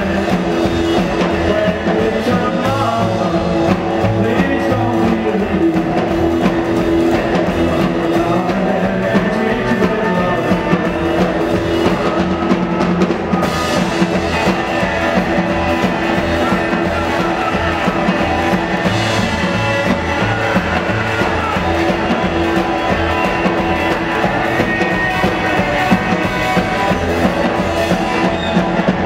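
Live rock and roll band playing: upright double bass and guitars, including a strummed acoustic guitar.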